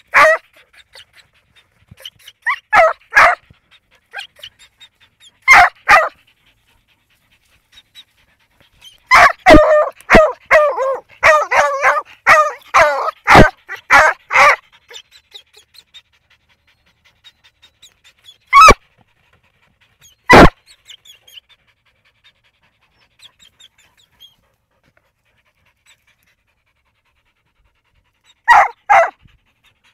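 Mongrel hunting dog barking at an armadillo's burrow in bursts: a few barks near the start, a fast run of barks through the middle, two single sharp barks a few seconds apart, then a couple more near the end, with quiet stretches between.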